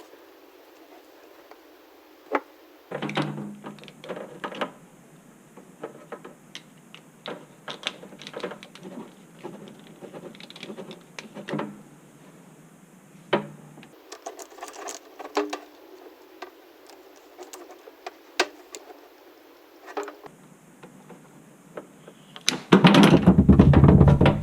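Scattered clicks, knocks and light rattles of tools and parts being handled during a garbage disposal installation. Near the end comes a loud, steady noise lasting about two seconds.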